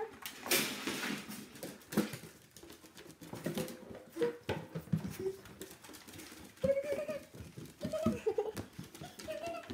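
French bulldog walking across a wooden floor, its claws clicking and tapping irregularly, with a few short high whines in the second half.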